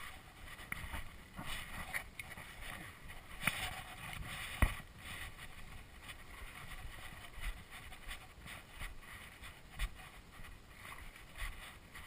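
Wind on the microphone and light water sounds around a wading angler, with scattered small clicks and knocks as the fly line is handled, and one sharper knock about four and a half seconds in.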